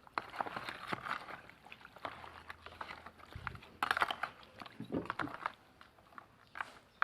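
Irregular wet squishing and light clicks of chicken pieces being mixed in a curry marinade with coconut milk.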